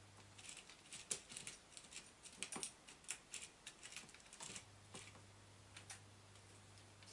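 Faint, irregular clicks and taps of small metal parts and a hand tool being handled on a large-scale RC monster truck chassis during assembly, over a faint steady low hum.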